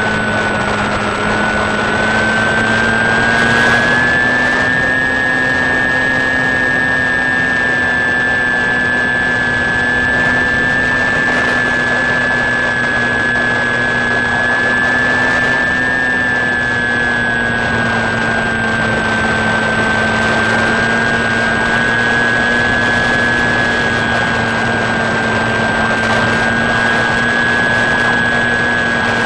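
Electric motor and propeller of an FPV radio-controlled plane in cruising flight, heard from on board. It gives a steady whine over an airy hiss, and its pitch dips and rises slightly a few times.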